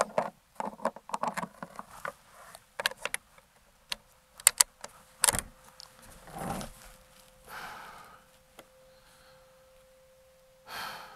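Umarex Hammer .50 caliber air rifle being handled at the bench to ready two more shots, a quick run of clicks and clacks, then a single sharper crack about five seconds in. A faint steady tone sets in at the crack and holds on, with a few short hisses after it.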